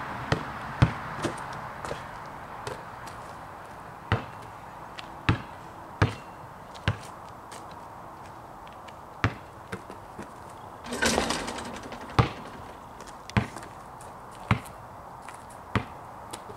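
Basketball bouncing: single sharp thuds at irregular intervals, roughly one every second or so, with a noisy burst lasting about a second near the middle.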